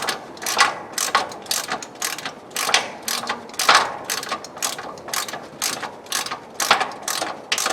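Ratchet wrench clicking in short, even back-and-forth strokes, about two or three a second, as it tightens a nut on the air compressor's mounting stud. The stud is being drawn into the frame, so it takes many strokes to get tight.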